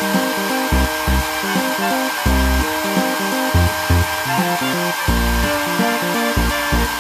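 Toy hair dryer running: a steady rushing hiss with a thin, even high whine, over background music.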